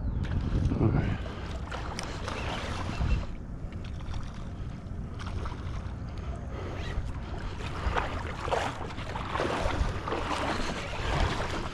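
Water splashing and sloshing around a small inflatable skiff, in irregular bursts: once near the start, again a few seconds in, and several times in the second half. Wind buffets the microphone throughout.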